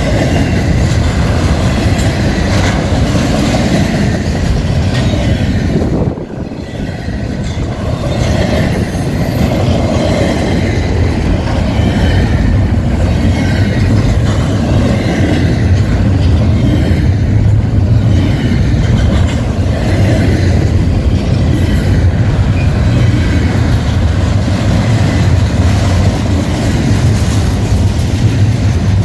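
Florida East Coast Railway double-stack intermodal freight train passing at close range: the well cars' steel wheels run over the rail joints with a steady, loud clickety-clack. The noise dips briefly about six seconds in.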